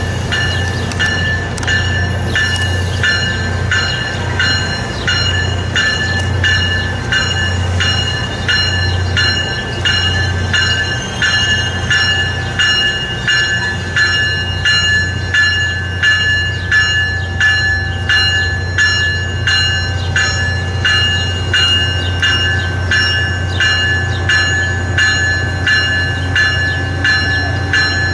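Tri-Rail double-deck commuter train drawing slowly into the platform and stopping. A bell rings steadily about twice a second over a low, constant hum from the train.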